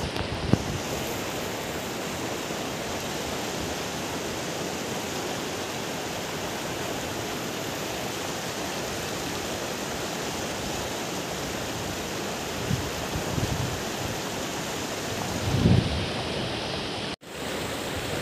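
Steady rush of a fast-flowing river running over rocks, with a few low gusts of wind on the microphone near the end. The sound cuts out for a moment just before the end.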